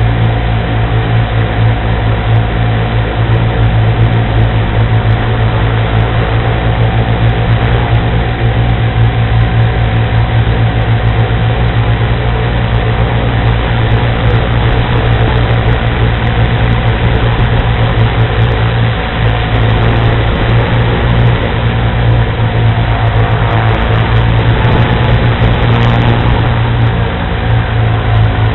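Quadcopter's electric motors and propellers running steadily. The sound is loud and close, picked up by the onboard camera's microphone, with a low, even hum.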